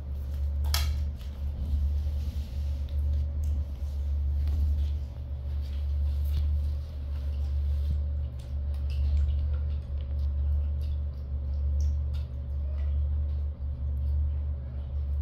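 A steady low rumble throughout, with scattered small clicks and taps from macaques picking noodles off ceramic plates.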